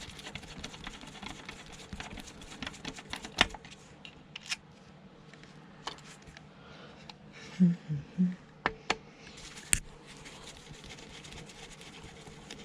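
Irregular small clicks, taps and light scrapes of a screwdriver working out flathead screws and handling the metal parts of an old sewing machine, with a cluster of louder knocks about eight seconds in.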